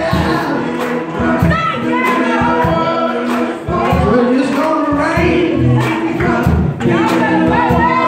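Live gospel music: male voices singing into microphones over a drum kit and electric guitar, with regular drum hits under the singing.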